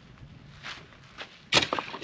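Footsteps crunching, then a loud sharp knock with a brief ring about one and a half seconds in.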